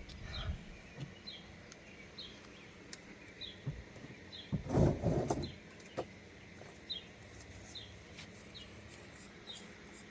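A bird chirping over and over, short high chirps that fall in pitch, coming less than a second apart. A brief louder noise about five seconds in.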